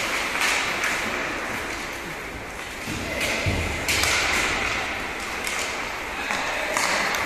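Ice hockey play: skate blades scraping across the ice, with several sharp clacks of sticks and puck.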